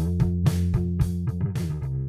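Outro background music: guitar over a steady beat, slowly getting quieter.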